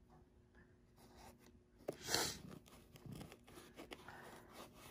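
Hatching eggs and fingers rubbing against a foam egg-shipping insert as eggs are lifted out and pressed back into its slots: soft scratchy rubbing and light clicks, with a louder rustle about two seconds in.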